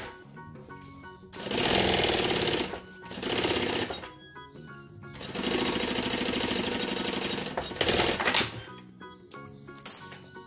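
Industrial single-needle sewing machine stitching in three runs, the longest about two and a half seconds, with a short last run near the end: topstitching the binding along a nylon mesh edge. Background music plays underneath.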